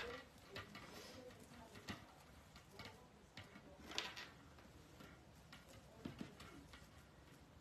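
Near silence with a few scattered soft rustles and taps from hands working in a deco mesh wreath, the clearest at the start and about four seconds in.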